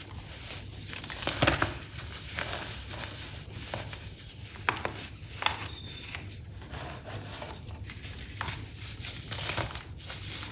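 Baking soda being crushed: irregular crunchy cracks and crackles, a few louder snaps among them.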